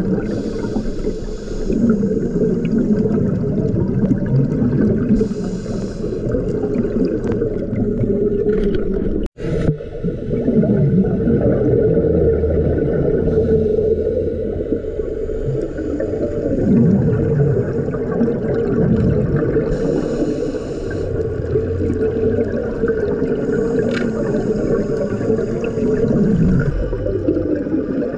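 Underwater sound picked up by a camera's microphone: a muffled, churning water rumble, with a bubbly hiss of scuba exhaust bubbles every several seconds. There is a brief dropout about nine seconds in.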